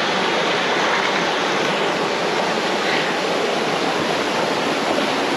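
Mountain stream rushing steadily over rocks, a small cascade of cold water pouring into a pool.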